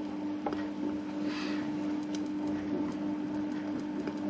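Eggs cooking under a glass lid in a cast iron frying pan: a faint sizzle and hiss with a few small ticks, over a steady low electrical hum.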